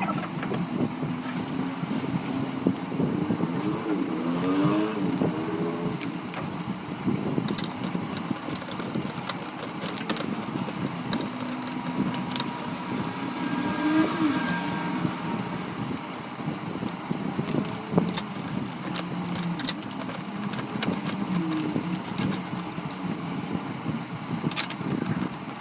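Scattered clicks and light metallic rattles of bolts, an Allen key and the steel backrest brackets of a Tomaz Blaze X Pro gaming chair being handled and fitted, over a steady low hum with a few slow rising and falling tones.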